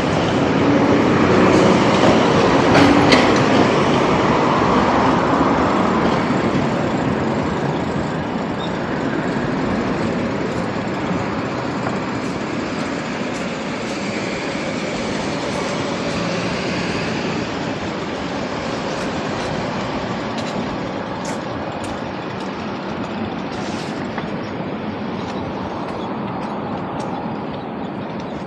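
A train running by with a steady rumble, loudest at first and slowly fading as it draws away.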